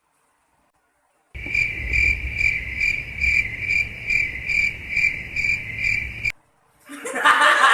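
Edited-in chirping-crickets sound effect: a steady high chirping that pulses about twice a second over a low rumble. It starts suddenly about a second in and cuts off abruptly near the end, the stock 'crickets' gag for a blank, reactionless moment.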